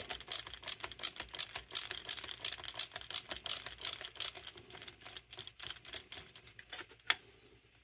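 Rapid, irregular light clicking and tapping of small metal carburetor parts on a Carter Thermoquad being worked into place by hand. It ends with one sharper click about seven seconds in.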